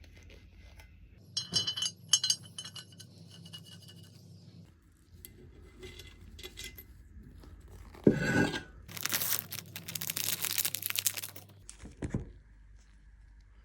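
Small metal engine parts clinking against each other on a workbench, then a knock and a few seconds of rasping, hissing noise, ending with another knock.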